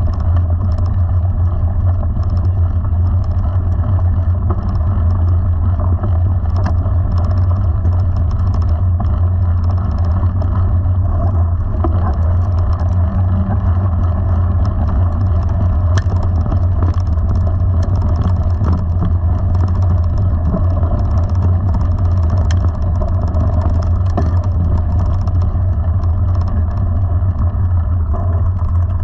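Steady low wind rumble on the microphone while riding a mountain bike, with faint crunching and ticking from tyres rolling over a gravel track.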